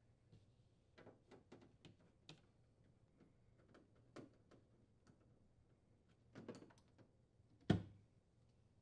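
Light, scattered clicks and ticks of a nut driver unthreading the screws that hold a refrigerator's evaporator access panel, with one sharper click near the end.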